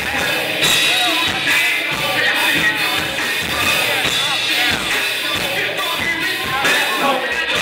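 Live band playing loudly: vocals into a microphone over electric guitar, keyboard and drum kit, heard through the club's PA.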